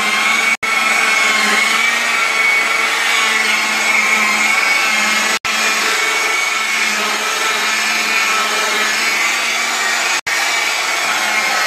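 Handheld electric car polisher with a foam pad running steadily against painted bodywork, a motor hum and whine that wavers slightly as the pad works the paint. It is machine-polishing the paint to bring up its gloss.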